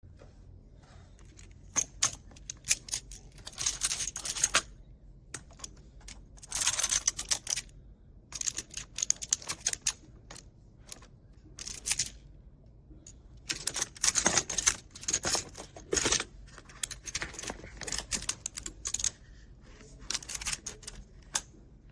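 Small plastic magnetic building blocks clicking and clattering as they are handled, in irregular runs of quick clicks and short rattles.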